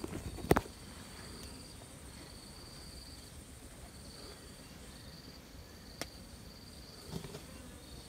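Insects trilling in the surrounding vegetation: a steady high-pitched buzz that comes and goes in stretches of a second or two. A sharp click sounds about half a second in, the loudest moment, and a smaller one around six seconds.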